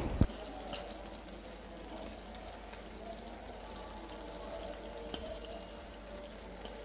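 Daal mash cooking in a pan, a faint steady sizzle and bubbling with scattered small pops. A single sharp knock comes right at the start.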